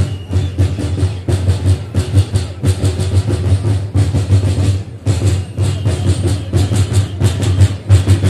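Drums of a Romanian bear-dance troupe beaten together in a fast, steady rhythm, with deep booming beats.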